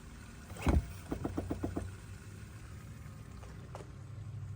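2017 Chevy Bolt brake booster clicking as the brake pedal is pressed: a thump, then a quick run of about six evenly spaced clicks, over a low steady hum. The repetitive clicking is the fault the owner is documenting on the new car.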